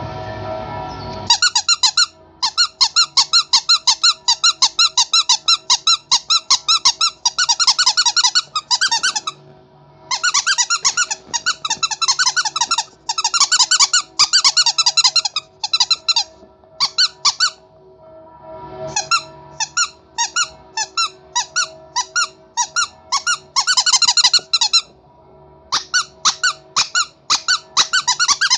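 Rubber monkey squeaky toy squeezed over and over, starting about a second in: fast runs of short high squeaks, about five a second, broken by a few brief pauses.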